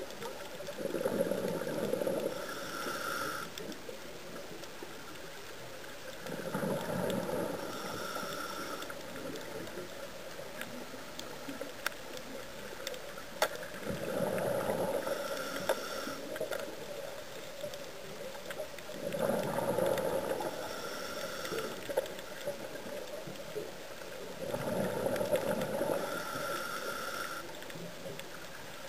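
Scuba diver breathing through a regulator underwater: five bubbling rushes of exhaled air, one about every five to six seconds, each with a brief hiss from the regulator, over a steady faint hiss.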